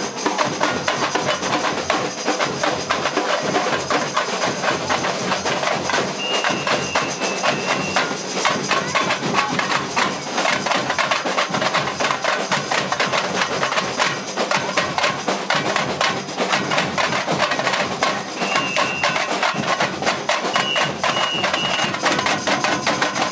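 A Brazilian university bateria (samba drum corps) playing continuously: dense, driving drumming on drums such as repiniques and snares, with no break.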